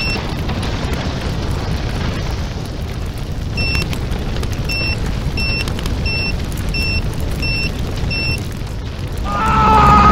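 Electronic self-destruct timer beeping as it counts down: one short beep, then a run of short beeps about every two-thirds of a second, over a steady low rumble. Near the end a louder long held sound starts.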